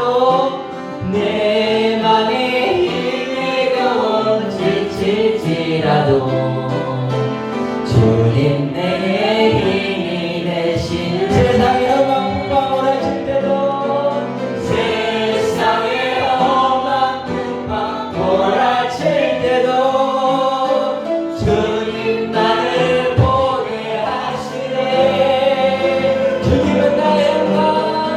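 Church worship music: a group of voices singing a Korean praise song together.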